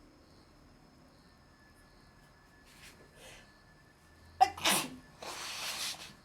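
A woman sneezing once, loudly and suddenly, about four seconds in, after two faint short in-breaths. A rush of breath follows for about a second.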